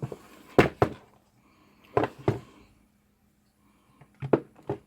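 Sharp clicks and knocks from handling the hard plastic housing of a small battery-powered LED worklight and its loose screws on a workbench: a pair about half a second in, two more around two seconds, and a quick cluster near the end.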